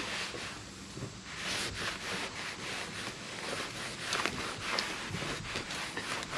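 Microfiber towel rubbing over a vehicle's painted hood in uneven back-and-forth strokes, a soft swishing wipe.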